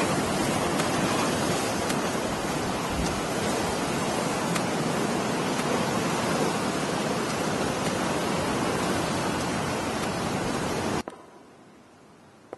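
Steady, even wash of ocean surf that cuts off suddenly about eleven seconds in, leaving only a faint hiss.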